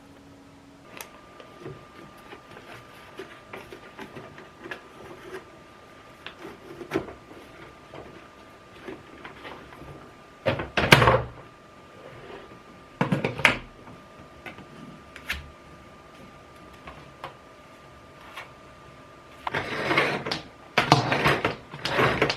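Handling noises: scattered clicks and knocks, with louder clattering bursts about ten and thirteen seconds in and again near the end, over a faint steady hum.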